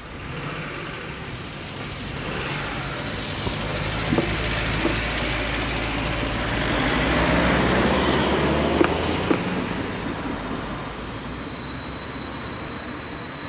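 Cars driving across the level crossing once the barriers are up: engine and tyre noise builds as a car passes close, loudest a little past halfway, then fades, with a few short knocks along the way.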